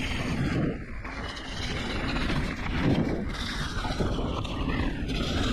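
Electric mountain bike ridden down a dirt trail: wind rushing over the helmet camera's microphone, with the tyres rumbling over the ground in uneven surges.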